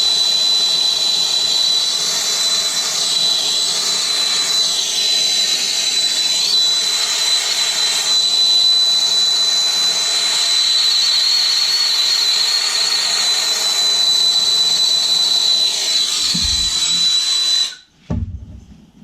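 Handheld gas soldering torch burning steadily with a hissing flame and a thin high whistle, heating the steel water heater tank for soldering. The flame is shut off abruptly near the end, followed by a brief low knock.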